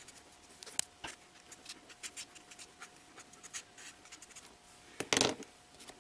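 Copic marker nib scratching in short, irregular strokes on mixed-media sketchbook paper while colouring, with a single sharp click early on. About five seconds in there is a louder, brief rustle as the hand and marker leave the page.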